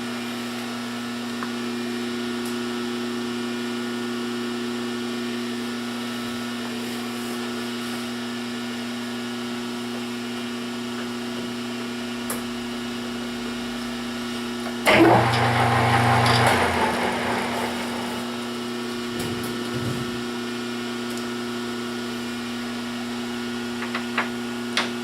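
Metal lathe running steadily with a constant motor hum. About fifteen seconds in there is a louder, rough cutting noise lasting about two seconds, and there are a few light clicks near the end.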